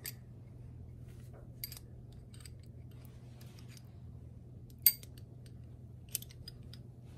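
Light metal clicks and clinks of a steel spanner being fitted onto a nut on a threaded bolt, with one sharper clink about five seconds in. A low steady hum runs underneath.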